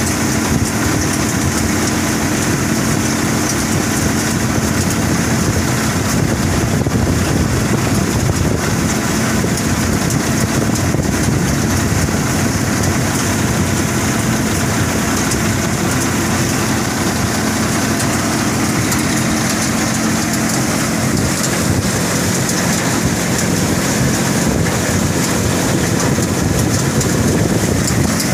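A cumin threshing machine running steadily, with a constant mechanical drone and a hiss of cumin seed pouring from its outlet chute onto a pile of seed.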